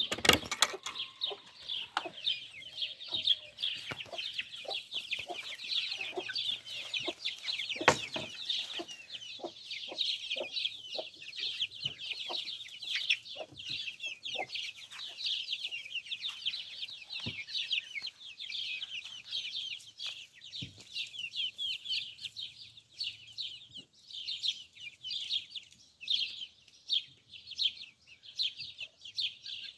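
A flock of chicks peeping nonstop, many high calls overlapping, with clucking now and then. Footsteps and short knocks sound through it, the sharpest knock about eight seconds in.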